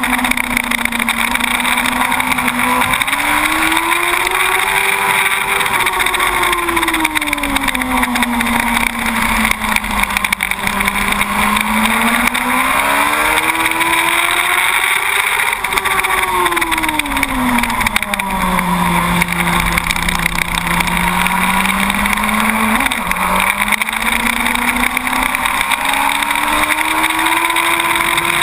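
2006 Yamaha YZF-R1 SP inline-four engine running hard on a track lap, heard from an onboard camera: the engine note swells up and down slowly twice, sinks low, then jumps up suddenly a little past two-thirds of the way through and climbs again, over a steady rush of wind noise.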